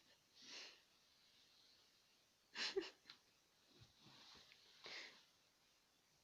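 Soft, short breathy huffs about a second or two apart, with a louder snort-like puff near the middle.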